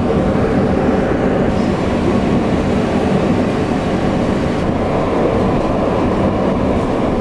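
Passenger train running at speed, heard from inside the carriage: a steady, loud rumble of the wheels on the rails and the car moving, with no letup.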